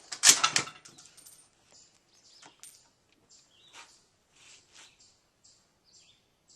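Metal clicks and clacks of a Carcano 91/41 rifle's bolt being worked, several in quick succession, then a few faint ticks.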